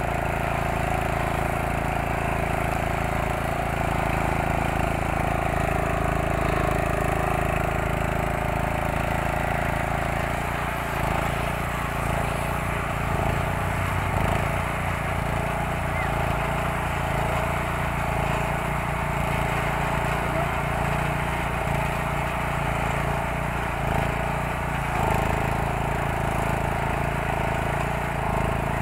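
Small petrol engine of a rail profile grinder running steadily while its grinding wheel grinds down a fresh thermite weld on the rail, a constant engine drone with the rasp of stone on steel over it.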